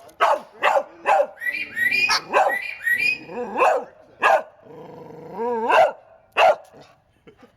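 White parrot mimicking a dog's bark: a quick run of three short barks, then longer bark-like calls with a wavering, gliding pitch, and one last short bark about six seconds in.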